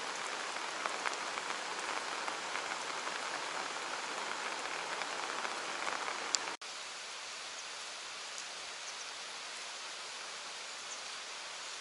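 Steady rain falling, with single drops ticking close by. About two-thirds of the way through, the sound cuts off abruptly and switches to a quieter, more even rain hiss.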